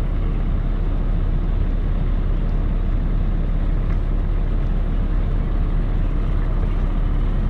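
Boat engine running steadily under power at the ramp, a constant low rumble with water churning from the prop wash.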